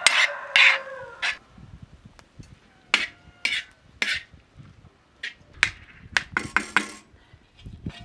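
Metal spoon scraping and knocking against a pan as a chopped chicken and vegetable filling is stirred: a string of short, sharp scrapes and clinks. A brief pitched squeal sounds in the first second.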